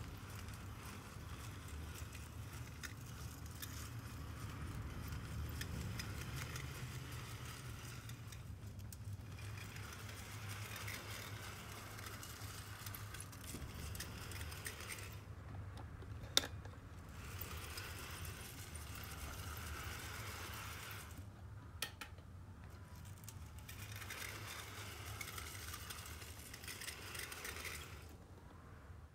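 Unpainted brass HO-scale 12 mm gauge model of a JNR 9600 steam locomotive running on its track, motor and gears whirring with a squeaky rubbing from axles that have not been oiled. The running sound drops away several times, and there are two sharp clicks, about 16 and 22 seconds in.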